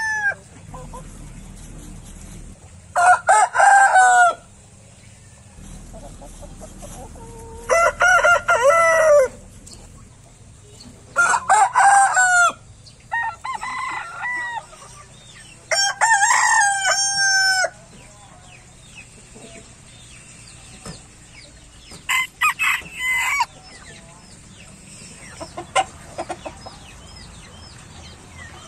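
Roosters crowing, about six crows a few seconds apart, each lasting a second or two, with fainter calls in the gaps.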